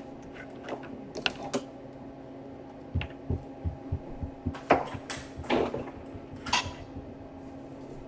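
Handling noise on a workbench as items and a cable are moved and set down: scattered clicks and knocks, a run of low thumps a few seconds in, then three short swishing scrapes. A steady low hum runs underneath.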